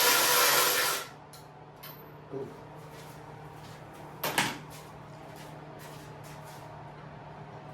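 A power tool whirs loudly for about the first second and cuts off, followed by a few light clicks and one sharp knock about four seconds in, the loudest moment, as parts of a mini bike's front end are worked loose.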